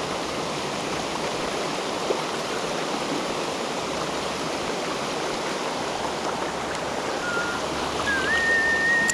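Creek water rushing steadily. Near the end a thin, high whistle-like tone comes in briefly, dips, then holds for about a second.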